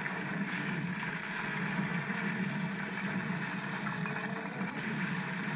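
Steady rushing of floodwater through a house, with a constant low rumble under it.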